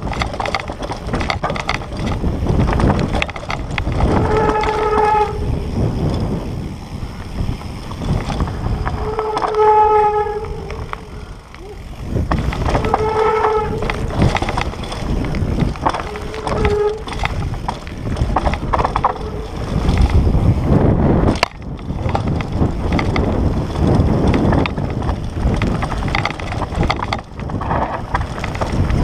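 Specialized Status 160 mountain bike rattling and clattering over a rough, rocky downhill trail at speed, with tyre roar and wind buffeting the microphone. Four short, steady squeals of about a second each cut through the rattle, spread over the first two-thirds.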